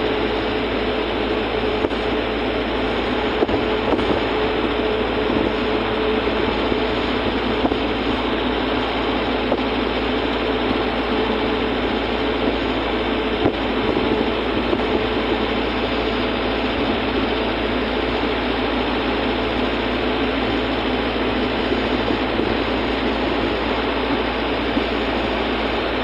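Steady road, tyre and engine noise of a moving car, heard from inside the cabin, with no change in pace.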